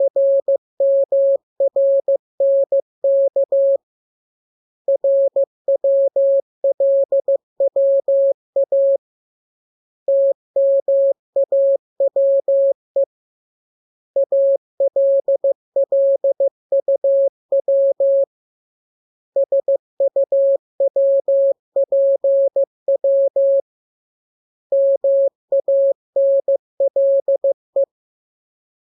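Morse code practice signal: a single tone at one steady pitch keyed into dots and dashes, sent in about six groups of a few seconds each with short pauses between them.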